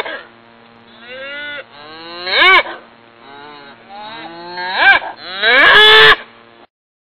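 Cattle mooing repeatedly: a string of calls that rise and fall in pitch, the loudest about two and a half seconds in, about five seconds in, and a long one just before six seconds, with quieter moos between. The sound cuts off suddenly near the end.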